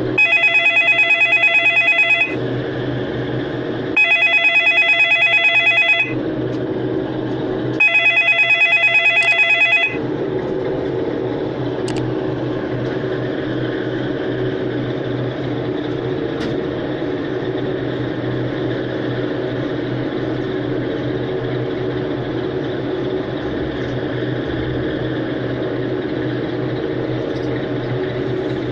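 A ringtone imitating a ringing telephone plays as three trilling rings, each about two seconds long with two-second gaps, then stops. A steady low hum of background noise carries on after it.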